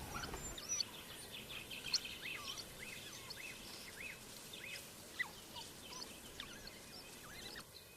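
Faint outdoor ambience with many short, high chirping calls scattered throughout, each a quick rising-and-falling note.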